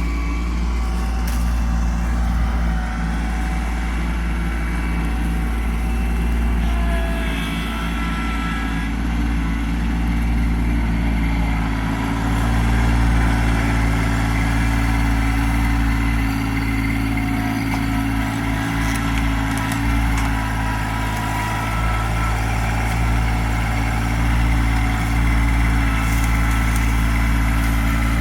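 Kubota LX2610 compact tractor's three-cylinder diesel engine running steadily, its note stepping up slightly about twelve seconds in.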